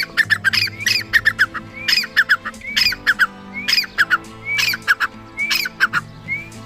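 A partridge calling: phrases of quick, sharp notes repeated about once a second, ending with a single note near the end, over background music.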